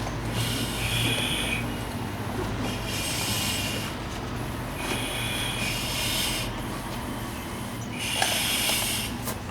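Breathing through an SCBA face piece and demand regulator: a hissing breath recurring about every two seconds, over a low steady hum.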